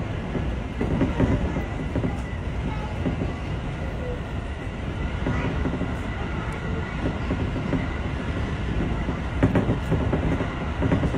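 Electric train running along the track, heard from inside the driver's cab: a steady rumble of wheels on rail, with a few heavier knocks about a second in and near the end.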